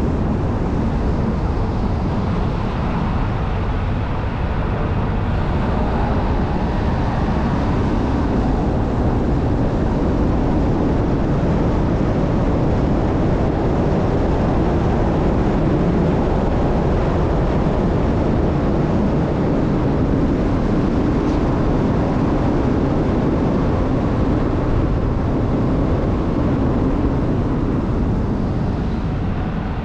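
Car driving along an asphalt road: steady engine and tyre noise with no sudden events.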